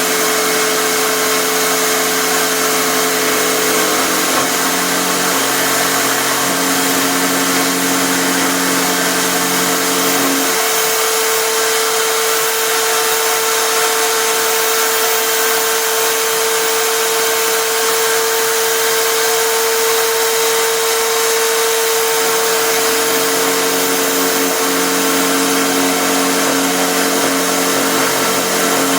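Electric drill running steadily at full speed as the motor of a homemade router table, its round-over bit cutting along the edge of a wooden board. A steady hum carries throughout, and the deeper part of the sound changes about ten seconds in and again a little past twenty seconds.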